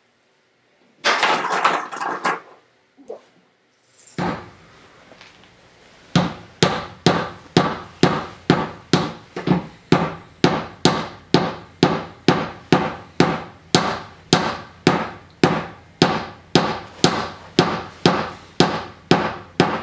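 A small hammer knocking on a piece of a wooden airplane kit: steady, evenly spaced blows, about two a second, starting about six seconds in. There is a short burst of noise about a second in.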